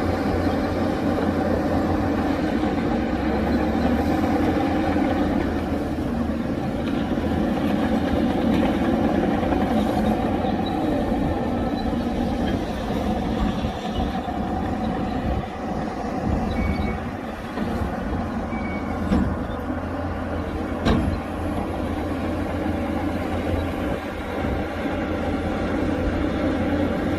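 Heavy diesel earthmoving machines working, a steady engine drone throughout, with two short sharp knocks about two seconds apart past the middle.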